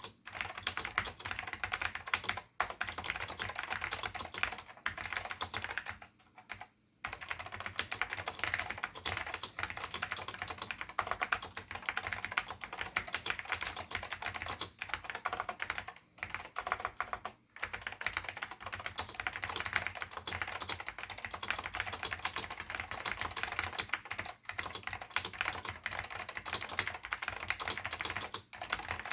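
Steady fast typing on a Dell AT101 keyboard with Alps SKCM Salmon switches and Alps Electric ABS doubleshot keycaps: a dense run of key strikes broken by a few brief pauses, the longest about six to seven seconds in.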